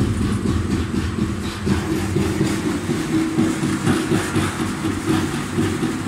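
Belt-driven Wektor pellet mill running steadily while pressing poultry-farm waste into 8 mm pellets. A constant low hum with an uneven rattle over it.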